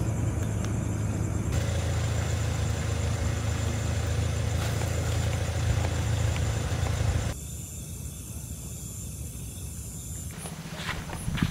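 Car engine idling with a steady low hum, cutting off abruptly about seven seconds in and leaving a quieter background with a few faint clicks near the end.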